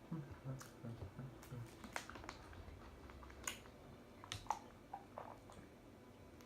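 Close-up eating sounds: faint chewing with scattered sharp clicks and smacks.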